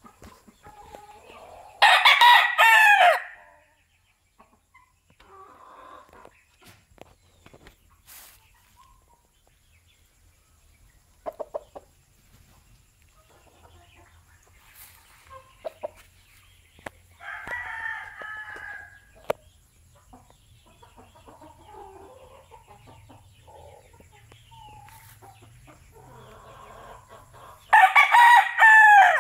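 Young gamecock rooster crowing three times: a loud crow about two seconds in, a softer one in the middle, and another loud one at the very end, with a few faint clucks and clicks between.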